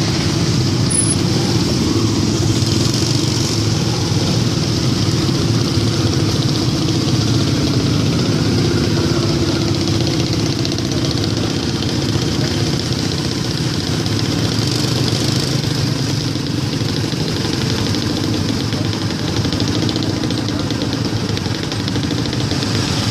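Motorcycle and scooter engines idling and creeping along in packed traffic: a steady engine drone that holds even throughout.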